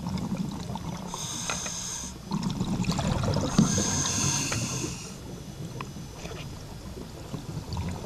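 Scuba diver breathing through a regulator underwater: two hissing breaths, each about a second long and roughly two seconds apart, over a steady low rumble.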